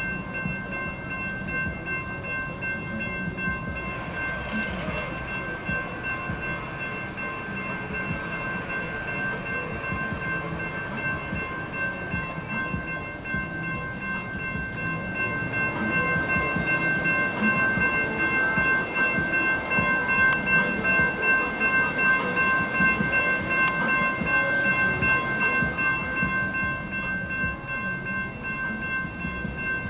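Railroad crossing warning bell ringing steadily as the crossing activates. A train's rumble builds under it and grows louder from about halfway through as the train nears.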